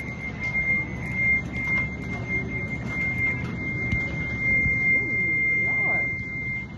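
A microphone in a purse giving off a steady high-pitched whistle, one unbroken tone that starts suddenly and is really loud, over the low hum of a large store.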